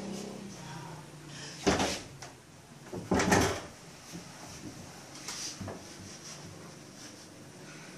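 Two loud knocks or thumps, a short one under two seconds in and a longer one about a second and a half later, followed by a few fainter bumps.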